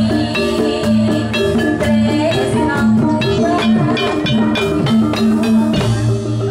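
Javanese gamelan-style dance music: a busy, repeating pattern of pitched metallophone notes over drums, played at a steady, loud level.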